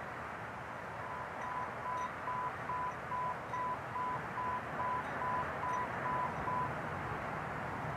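Steady outdoor background hiss, like distant traffic, with a run of short electronic beeps at one pitch, about two and a half a second. The beeps start about a second in and stop near the end.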